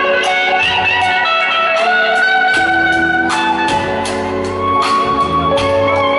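Live band music heard from the audience, led by an electric guitar playing long held notes.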